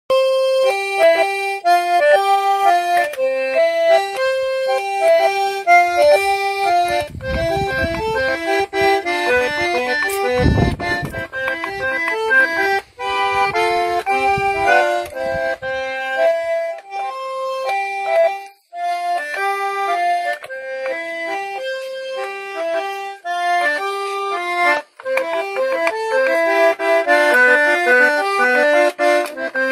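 Button accordion playing a chamamé melody note by note over chords, with a few short breaks between phrases.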